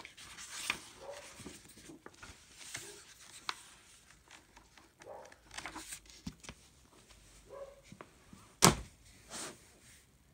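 Scattered faint clicks and rustles, with one sharp knock about nine seconds in.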